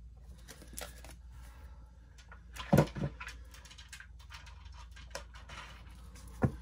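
A tarot deck and things on a table being handled: light rustling, two loud knocks close together about three seconds in, and another knock near the end.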